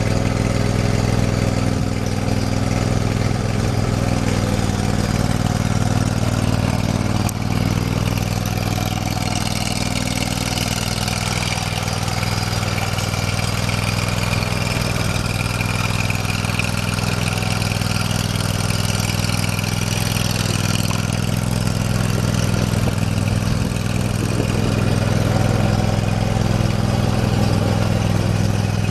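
Briggs & Stratton OHV V-twin gas engine of a Dixon Ram zero-turn mower running steadily, a little louder for the last few seconds.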